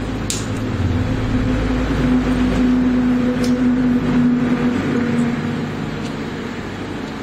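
Jasic TIG200P AC/DC inverter welder switched on and idling: its cooling fan runs with a steady electrical hum. A few light clicks come as the panel controls are worked.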